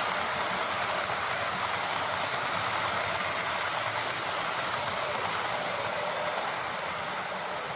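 H0 scale model train running along the layout track: a steady rolling noise of wheels on rail and the motor's hum, growing slightly quieter toward the end.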